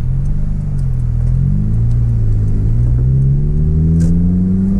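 Honda car's engine heard from inside the cabin at low speed, its revs dipping and then climbing steadily as the car accelerates. No popping comes from the front suspension, now that the loose stabilizer link has been tightened.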